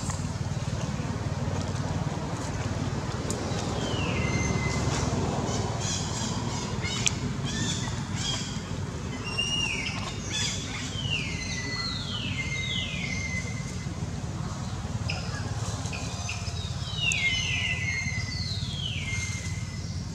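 A series of high, shrill animal calls, each sliding down in pitch and then levelling off, about a dozen of them starting about four seconds in and coming in clusters. A steady low rumble runs underneath.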